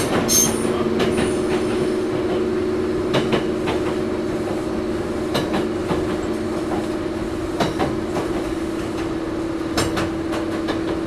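Interior running sound of a Toyohashi Railway 1800 series electric car, an ex-Tokyu 7200 series with resistance control, travelling at steady speed: a steady hum under a noisy cabin, with sharp wheel clicks over rail joints about every two seconds.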